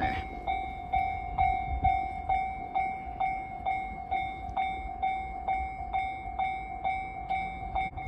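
Japanese level-crossing warning alarm ringing, a clanging tone struck about twice a second, the signal that the crossing is closing for an approaching train.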